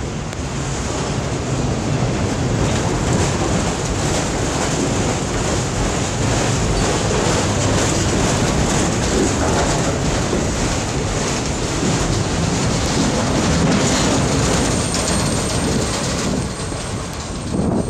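Freight train cars rolling past at close range, wheels clattering steadily over the rail joints. The sound eases off about a second before the end.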